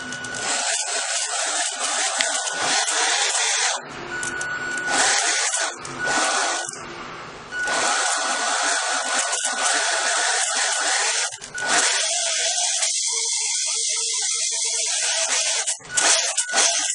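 Small electric motor of a radio-controlled model dump truck's tipping gear whirring with a thin steady whine. It starts and stops abruptly about half a dozen times, in runs of up to about four seconds.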